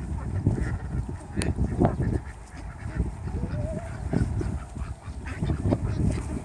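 A flock of domestic ducks, white Pekin-type and mallards, quacking in scattered short calls over a low rumble.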